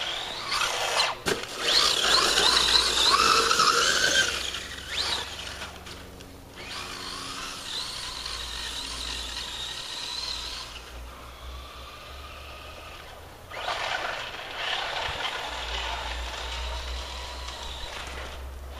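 Traxxas Stampede 4x4 RC truck's brushless electric motor and drivetrain whining in three bursts, the pitch rising and falling with the throttle. One sharp knock about a second in.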